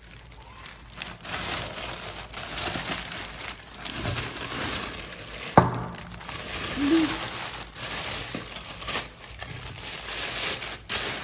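Plastic carrier bag and newspaper wrapping crinkling and rustling as they are handled to unpack a clay pot. There is a single sharp knock about five and a half seconds in.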